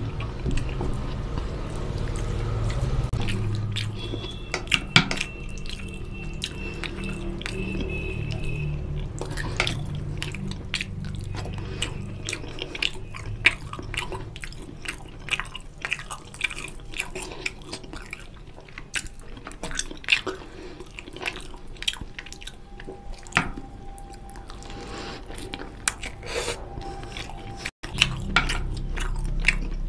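Eating oily mutton curry and rice by hand: fingers mixing the rice into the gravy on the plate and the mouth chewing, a steady stream of small wet clicks and smacks.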